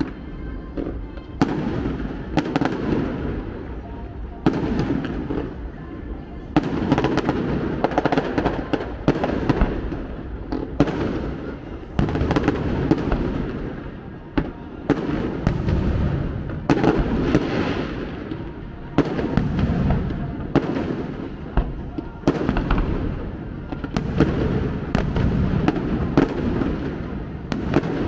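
Fireworks display: aerial shells bursting in a rapid series of sharp bangs every second or two, each followed by an echoing rumble that runs into the next.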